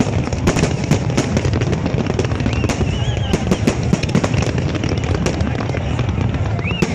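Fireworks going off in rapid succession: a dense run of bangs and crackles over a steady low rumble, with a couple of short whistles.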